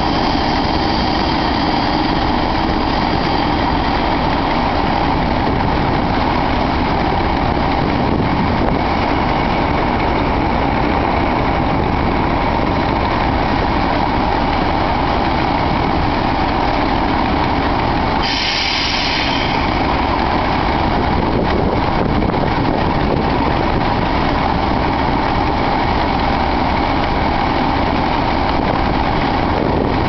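Two Class 37 diesel-electric locomotives idling steadily, their English Electric V12 engines running with a constant throb and a steady whistle-like tone. A brief high-pitched sound comes in about two-thirds of the way through, and a strong breeze buffets the microphone.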